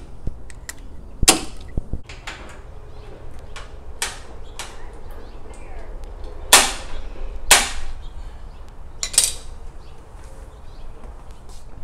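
Handling noises of an oil drain hose and its spring clip being worked into place beside a riding mower's engine: scattered small clicks with about five louder knocks and short scrapes.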